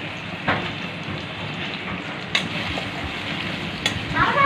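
Chopped tomatoes frying in hot oil in a karai, a steady sizzle, with a few sharp clicks about a second apart.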